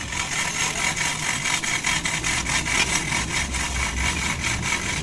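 Small steel stand on metal caster wheels being rolled over rough, gritty dirt ground: a continuous scraping rattle of rapid clicks.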